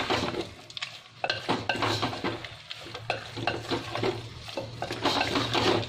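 A spoon stirring and scraping a pasta mixture in a clay pot: a quick, irregular run of scrapes and light knocks against the pot.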